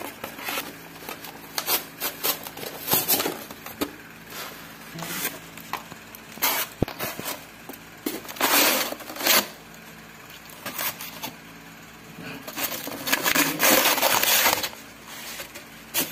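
Unboxing handling noises: tape being peeled off a styrofoam box, and the box and plastic-sealed food trays rubbing and rustling under the hands. The noise comes in irregular bursts with small clicks, the longest about halfway through and again near the end.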